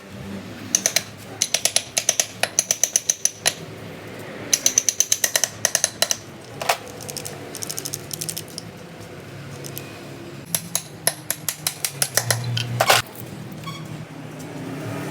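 Metal hand tools working on a truck manual gearbox: three runs of rapid sharp metallic clicks at about seven a second, the first about three seconds long and the others shorter, with two single louder strikes between and near the end.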